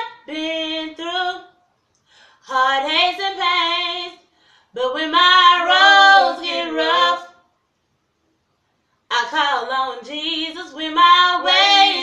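A woman singing unaccompanied, in four sung phrases separated by short silences, with a longer pause just past the middle.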